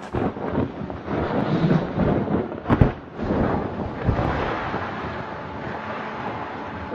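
A large camouflage tarp rustling and flapping as it is shaken out and spread on the ground, in irregular surges of crackling, with a sharp snap about three seconds in.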